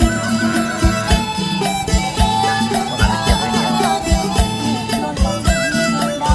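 Background music: a folk-style tune with a melodic lead instrument over a steady drum beat.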